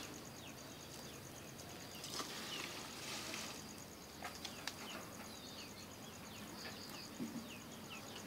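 Outdoor rural ambience: an insect trilling in a steady, fast-pulsing high note, with birds giving many short, downward-sliding chirps. A few faint clicks.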